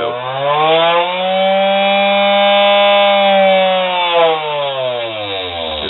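Mini grinder's small electric motor spinning its thin blade, its speed turned up and back down on a light-dimmer speed control. The whine rises in pitch over the first second or so, holds for about two seconds, then falls away as the motor slows.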